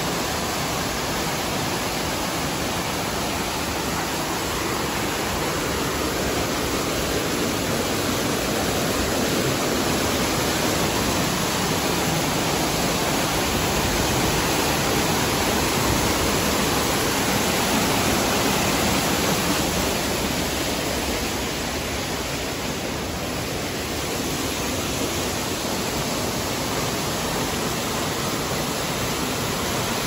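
Water rushing down a rocky waterfall cascade: a steady, loud, hissing rush that swells a little midway and then eases back.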